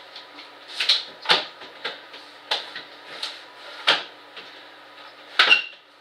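Irregular clicks and knocks of small hard objects being handled, about seven in a few seconds, over a steady faint background hum.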